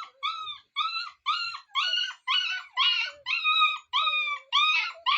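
Puppy crying in short, high-pitched whines repeated about two or three times a second.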